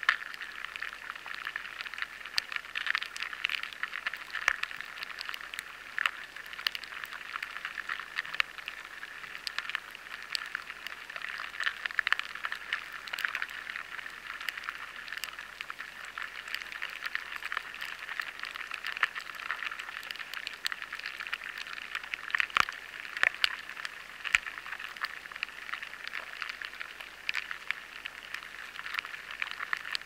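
Lesser grain borers (Rhyzopertha dominica) feeding inside barley grains, picked up by a high-sensitivity sensor: a dense, irregular crackle of fine sharp ticks, with a few louder ones, like the patter of rain on a tarmac road.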